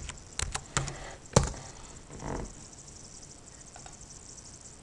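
Computer keyboard keystrokes as a dimension value is typed in: about five quick taps in the first second and a half, the last and loudest likely the Enter key, then a soft rustle and a couple of faint ticks.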